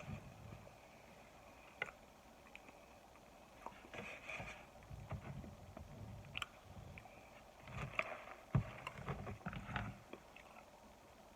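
Close-up chewing and crunching of microwaved cornstarch chunks, irregular crackles with a few sharp clicks.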